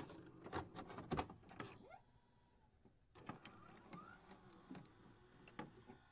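Near silence, with a few faint scattered clicks in the first second or so and a couple of short rising blips later.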